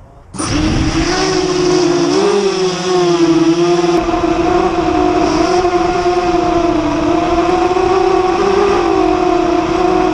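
Brushless motors and propellers of a ZMR250 FPV quadcopter, spooling up abruptly about half a second in and then holding a steady whine whose pitch wavers slightly with throttle.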